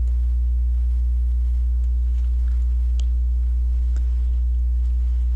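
Loud, steady low electrical hum with a ladder of fainter, higher overtones, unchanging throughout, with two faint ticks about three and four seconds in.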